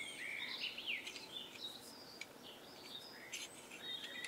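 Birds singing faintly: a run of short chirps and whistled notes that slide up and down in pitch.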